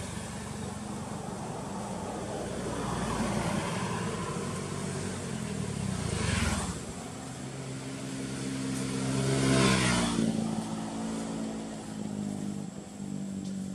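A motor vehicle's engine running as it goes by. It grows louder to a peak about two-thirds of the way in, and its pitch drops just after as it passes.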